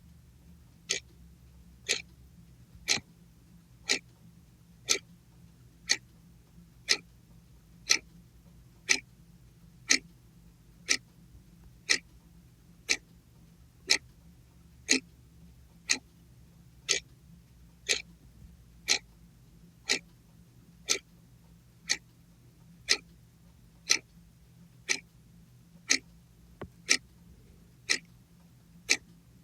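Clock ticking sound effect: one sharp tick every second, perfectly regular, over a faint low hum.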